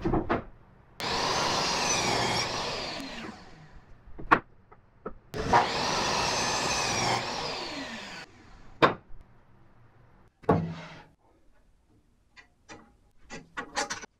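A DeWalt miter saw run twice, each time starting suddenly, running for a couple of seconds with its pitch wavering under load as it cuts the wooden board, then winding down. Sharp knocks and a few light clicks follow as the board and clamp are handled.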